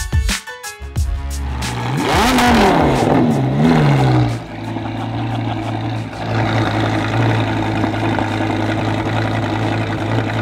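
Music cuts out in the first second or so, then a supercar engine is blipped twice, rising and falling in pitch, and settles into a steady, loud idle.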